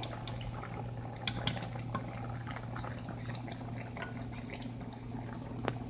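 A pot of okra soup bubbling on the stove over a steady low hum, with a few sharp clinks of a utensil against the pot, the loudest two close together about a second and a half in.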